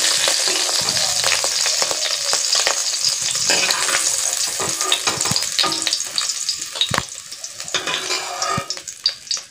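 Cauliflower florets sizzling in hot oil in a metal kadai, with a metal ladle stirring and clicking against the pan. The sizzle thins out from about six seconds in as the florets are lifted out, leaving mostly scattered ladle clicks and scrapes near the end.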